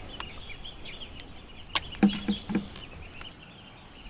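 Insects chirring in a steady, high-pitched drone. About halfway through, a click and three short low sounds.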